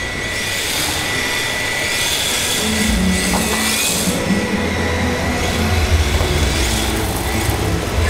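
Electric 1:10-scale RC drift truck accelerating and drifting: its motor whine rises and falls in pitch several times over a steady background hum.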